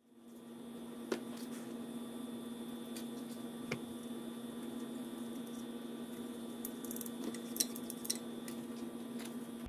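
A steady low hum fading in, with a few sharp clicks and light taps from handling a grease tube and the metal recoil starter housing.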